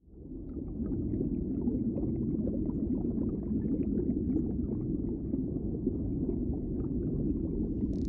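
Underwater ambience: a steady, dense low rumble of moving water with faint crackling, fading in over the first second.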